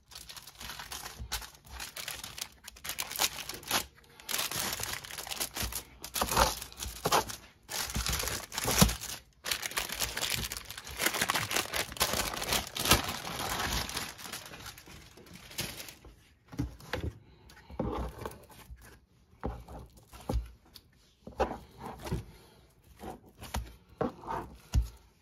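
Wax paper and plastic cling wrap crinkling and rustling as a block of fresh homemade butter is folded and pressed into shape with a bench scraper. The crinkling is dense for most of the first two-thirds, then thins to scattered short rustles and taps.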